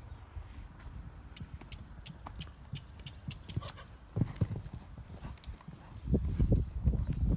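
Horse's hooves thudding on a sand arena at canter, with a run of light high clicks in the first few seconds. The hoofbeats become loud and rhythmic about six seconds in.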